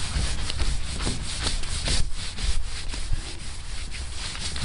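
Cloth pressed hard and rubbed in repeated strokes over a truck's painted body, wiping off dried rubbing compound, a scratchy rubbing close to the microphone.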